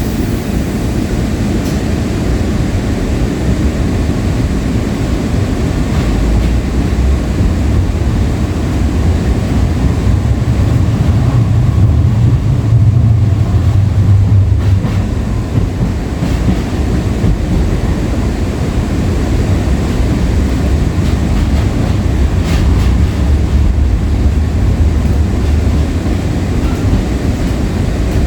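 Interior ride noise of a Breda LRV3 light rail car in motion: a steady low rumble of wheels and running gear on the track. It swells louder about a third of the way through, then eases back.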